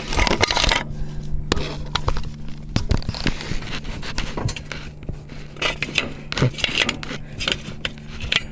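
Irregular scraping, clinking and knocking of metal tools and equipment being handled, with a steady low hum underneath.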